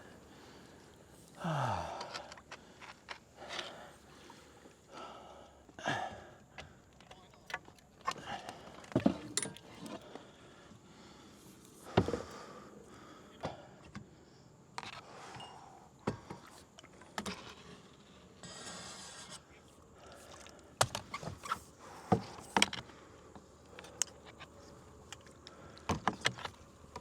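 Scattered knocks, clunks and splashes of a kayak being worked out through shallow water off a mudflat, irregular and unhurried, with a short low falling sound about a second and a half in.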